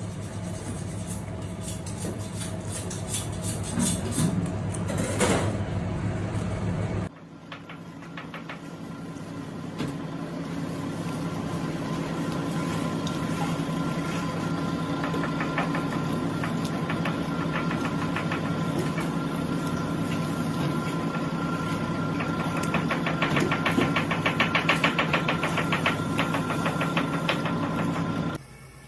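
A steady machine hum, like a motor or fan, with light clicks and scrapes over it. The hum changes abruptly about seven seconds in.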